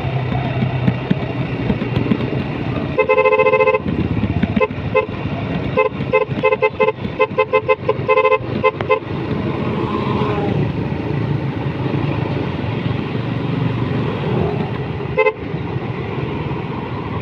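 A motorcycle riding along with steady engine and wind noise, while a horn honks: one long toot about three seconds in, then a quick string of short beeps, about three a second, for several seconds, and one more short toot near the end.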